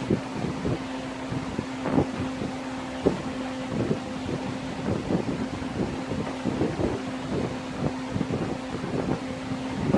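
Heat gun running with a steady hum and a rush of air, used to dry and cure liquid vinyl in a seat-cover repair, with scattered short knocks and scrapes of hand work over it.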